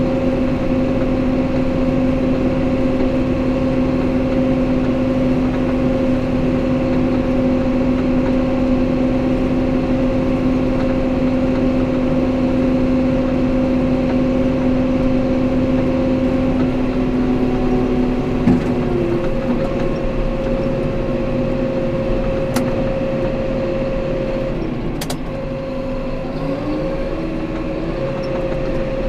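Farm tractor engine running steadily, heard from inside the cab. About two-thirds of the way in the engine note changes, and near the end it rises again.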